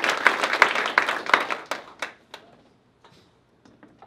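Audience applauding, the clapping dying away about two seconds in, followed by a few scattered last claps.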